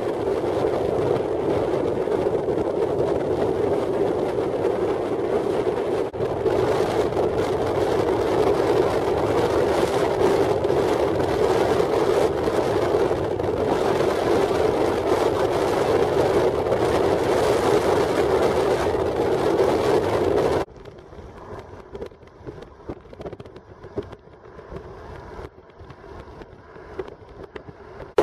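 Steady rushing wind and road noise of a car driving at speed, heard from inside the car. It drops abruptly about two-thirds of the way through to a much quieter, uneven road noise.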